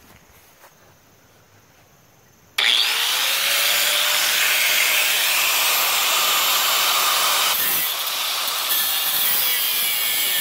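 Angle grinder with a cutting disc running against a rusty steel I-beam: a loud, continuous grinding noise that starts abruptly about two and a half seconds in, after a quiet start, and eases slightly near the end.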